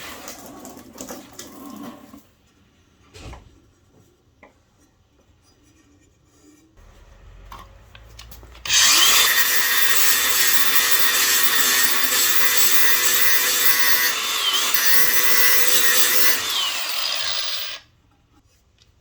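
A few light handling clicks and knocks. About halfway through, a power grinder spins up and grinds steel steadily for about nine seconds, sharpening a lawnmower blade. Its pitch dips briefly twice under load, and it then cuts off.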